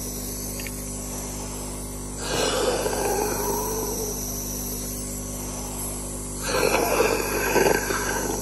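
Nebulizer compressor running with a steady hum while a man takes two hard, deep breaths through the mouthpiece, about two seconds in and again about six and a half seconds in.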